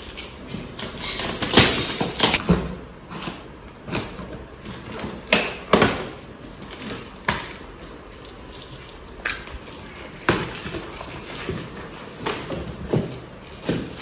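Cardboard shipping box being cut and opened by hand: scissors snipping, and cardboard flaps and packing tape scraping and rustling, heard as a string of irregular sharp clicks and short rustles.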